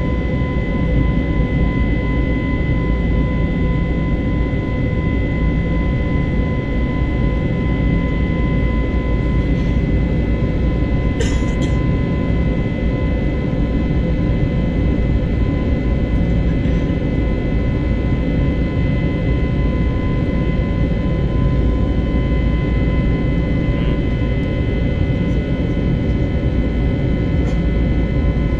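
Jet airliner cabin noise in flight: a steady, dense low rumble of engines and rushing air with a steady whine over it. There is one brief click about eleven seconds in.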